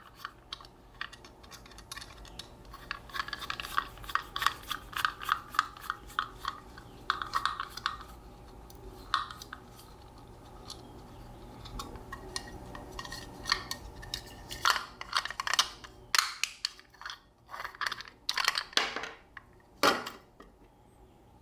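Small metal parts clicking and clinking under the hands: a screw and nut being worked off a bolt on a metal post-lamp fixture. A fast run of small clicks fills the first half, then scattered sharper clinks follow.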